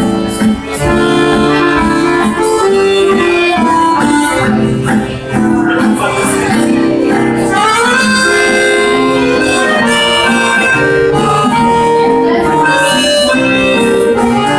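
Loud live music, a band playing held notes and chords with a sliding lead line.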